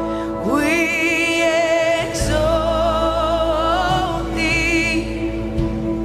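Christian worship song: a singing voice with vibrato holding long, wavering notes over a sustained accompaniment.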